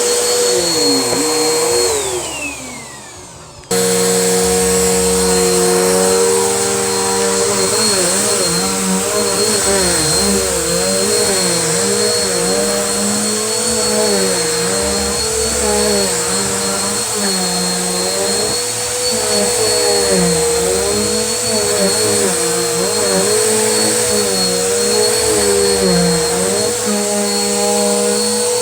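Vacuum cleaner motor running with a steady high whine. About two seconds in it winds down with a falling pitch, then cuts back in suddenly at full speed. From there its pitch dips and rises again every second or two as the cleaner is worked over the floor.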